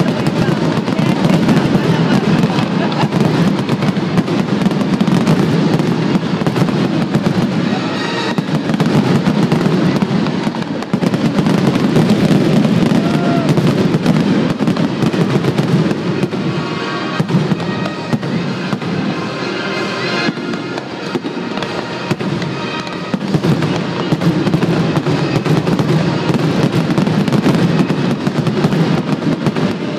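Aerial fireworks display: many shells bursting in quick succession, a dense, continuous run of bangs and crackling.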